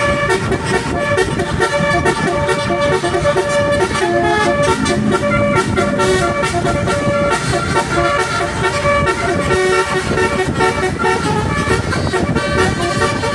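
Telolet musical bus horn playing a tune: several horn tones sound at once and step quickly from note to note, without a break.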